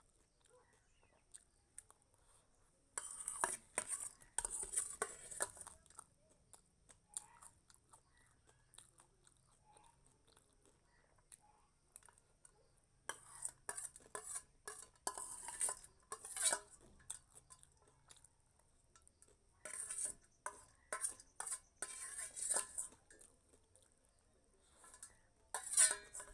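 Clatter and scraping against a plate as a mixture of puffed rice and vermicelli is scooped up and eaten, coming in four short bouts with quiet pauses between.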